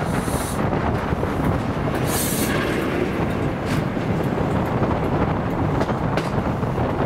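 Caledonian Sleeper train running on the rails: a steady rumble with occasional wheel clicks over rail joints and a brief hiss about two seconds in.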